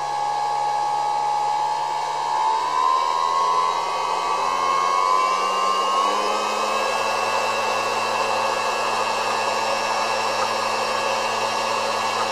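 AE300L-P desktop laboratory high-shear emulsifier homogenizer running in a beaker of liquid: a steady motor whine that steps up in pitch about two and a half seconds in and again about six seconds in as its speed is turned up.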